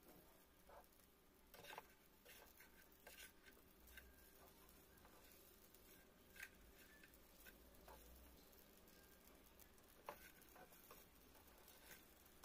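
Very faint, scattered clicks and scrapes of a spatula stirring poha (flattened rice) in a frying pan, over near silence.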